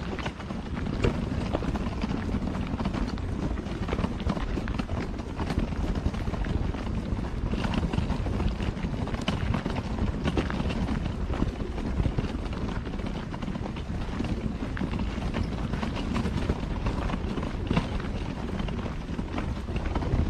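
Footsteps on a gravel trail in a steady walking rhythm, over a constant low rumble.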